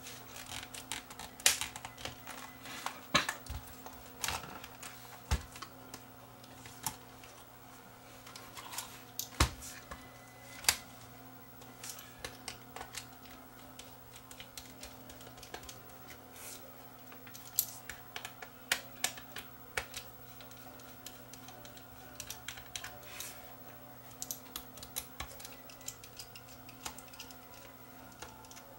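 Sony Digital 8 camcorder being taken apart by hand: its plastic case parts and small screws click and tap irregularly, with a few sharper knocks among lighter clicks. A steady low hum runs underneath.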